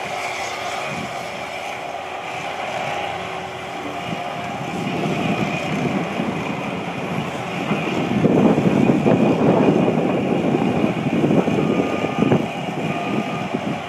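Heavy construction machinery running steadily: the diesel-driven drilling rigs of a ground-improvement site. A rough, rumbling machine noise swells from about five seconds in and is loudest for several seconds past the middle, then eases near the end.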